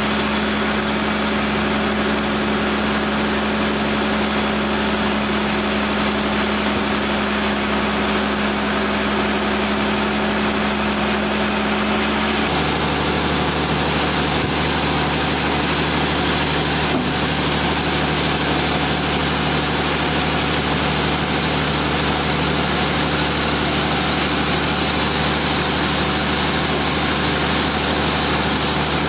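Sawmill machinery running: a steady engine hum with no let-up, its main tone dropping suddenly to a lower pitch about twelve seconds in.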